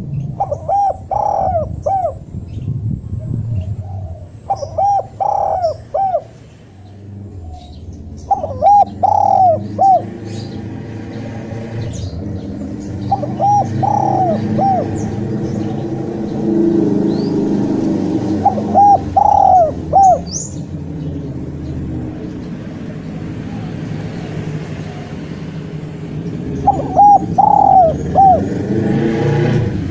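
Spotted dove cooing: six loud, sharp phrases several seconds apart, each a quick run of notes. A low engine rumble builds underneath from about a quarter of the way in.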